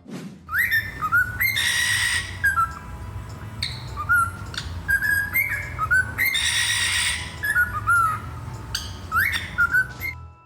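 A pet parrot whistling and chirping in short rising notes, broken twice by a harsh screech of about a second.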